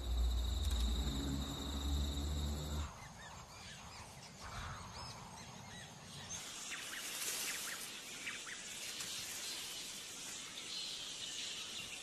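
Background music for about the first three seconds, cutting off abruptly into outdoor bush ambience. Insects buzz steadily from about halfway on, with a few short chirps.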